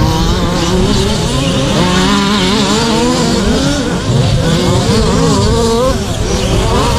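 Several radio-controlled short-course race trucks running around the track, their motors whining and gliding up and down in pitch as the drivers work the throttle. Wind rumbles on the microphone underneath.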